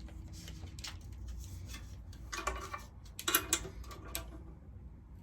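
A few light clicks and clinks of a beam saw being handled, with a small cluster of knocks a little past halfway, over a low steady hum.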